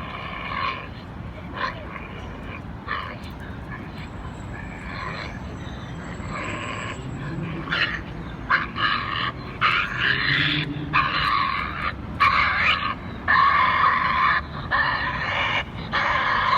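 Recording of a shot, dying badger played back through a speaker: repeated high-pitched squealing cries, faint and sparse at first, then from about halfway in louder, longer and coming about once a second.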